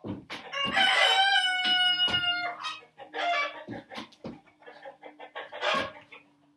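A rooster crows once near the start, a single long call of about two seconds. Dull thuds of hands and feet landing on a wooden porch deck during burpees come and go throughout.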